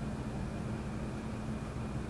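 Air-conditioner outdoor unit running: a steady low hum with fan noise underneath. Crickets trill faintly as a thin, steady high tone.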